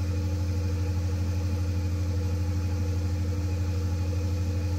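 Large natural-gas generator engine running steadily under a load of about 200 kW: a constant deep drone with a steady higher hum above it.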